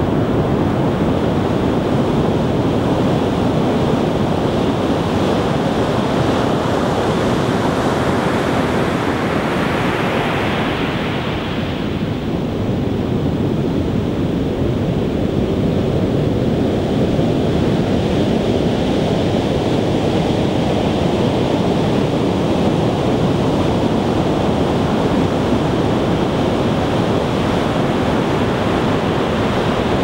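Heavy storm surf breaking in a continuous deep rush of white water. About ten seconds in, the hiss brightens as a breaker crashes, then briefly falls away before the next set builds.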